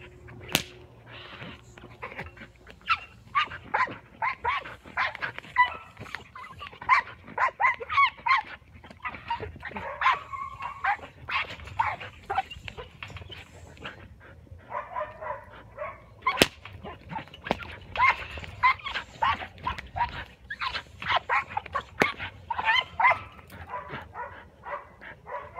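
A dog whining and yipping in many short, rapid high-pitched cries, with a few sharp clicks among them.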